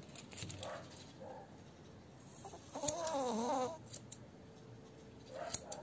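Grooming scissors snipping a few times through thick dog hair. About halfway through comes one wavering, pitched vocal call a little under a second long, the loudest sound here.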